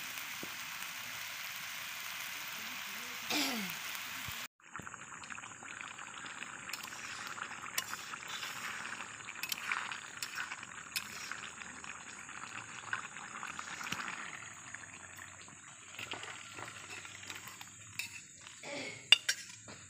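Curry sizzling and bubbling in a metal wok over a wood fire, stirred with a ladle that clinks against the pan. Near the end the curry is tipped from the wok into a steel bowl, with the ladle scraping and clanking on the metal.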